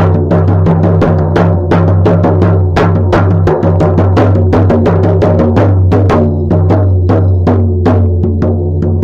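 Shamanic frame drum beaten in a steady, fast, even rhythm of about four to five strokes a second, with a deep ring that carries on between strokes. This is the monotonous drumbeat used for a shamanic journey.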